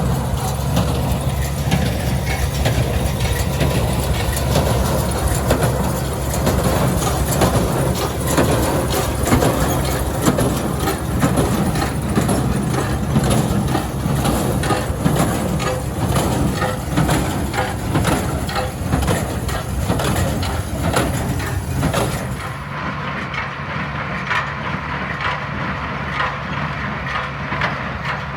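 Tractor running under load while pulling a New Holland 316 Sperry square baler through hay, the engine's steady hum mixed with the baler's repeated clattering knocks. About three-quarters of the way through, the sound turns a little quieter and duller.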